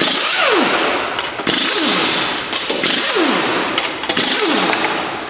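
Pneumatic impact wrench with a 19 mm socket spinning lug nuts off a car wheel in a run of short, loud bursts. Each burst ends with the motor's pitch falling away as the trigger is released.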